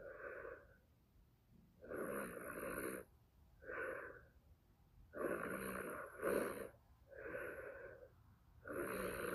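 A person snoring, seven snores in irregular bursts of about half a second to a second each, with short pauses between.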